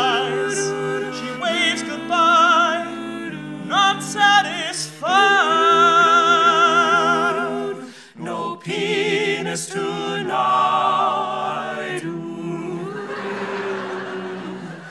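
An a cappella vocal group singing in close harmony without instruments, holding long notes with strong vibrato, with short breaks between phrases.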